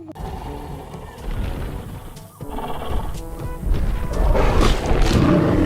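Background music mixed with dense, noisy sound effects, getting louder about four seconds in.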